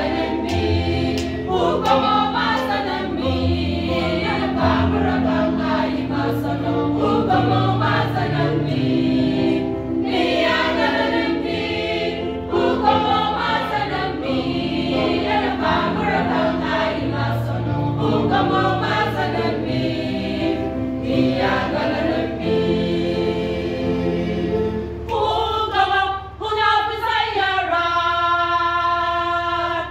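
Church choir singing a hymn in parts, women's and men's voices together. About 25 seconds in the low parts drop out and the upper voices hold a long chord.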